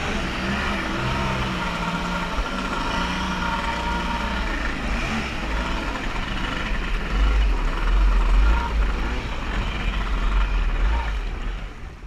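Kawasaki JS550 jet ski's two-stroke engine running under way, its pitch rising and falling with the throttle, with wind rumbling on the microphone that grows louder in the second half before the sound fades at the end.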